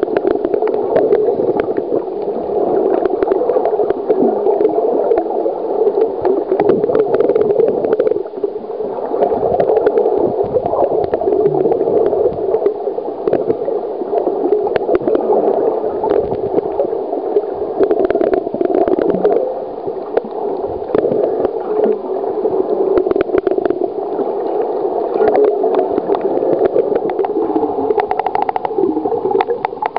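Muffled gurgling and sloshing of water as picked up by a waterproof compact camera's microphone held underwater, with many faint clicks and crackles scattered through it.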